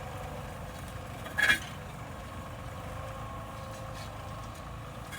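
Tractor engine running steadily, with one brief sharp click about a second and a half in.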